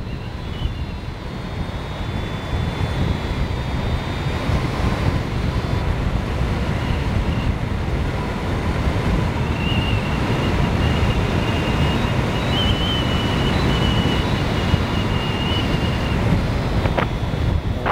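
Airflow rushing over a hang glider in flight, buffeting the microphone with a steady low rumble. A faint thin high whistle wavers through the middle of it.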